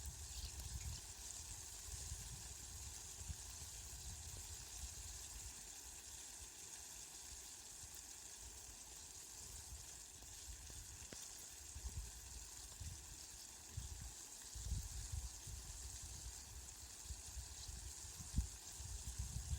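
Steady rain falling, an even hiss, with low rumbles coming and going underneath, more of them in the second half.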